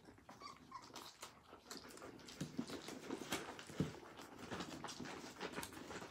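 Young nursing puppies whimpering and squeaking faintly, with soft irregular clicks and shuffling from the litter at the teats.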